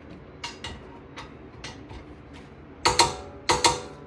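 Click-type torque wrench on the caliper bracket bolts. It ratchets with a few light ticks, then gives two loud, sharp double clicks about half a second apart near the end, the wrench breaking over at its set torque of 130 ft-lb.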